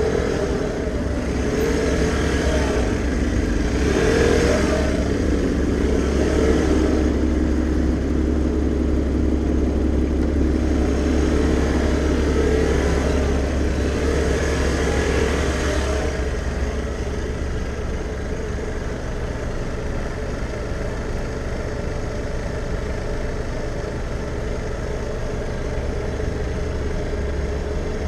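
Vespa scooter's single-cylinder engine running in slow stop-and-go city traffic, the note rising and falling with the throttle. It drops to a quieter, lower running note about halfway through, as the scooter comes to a crawl or stop.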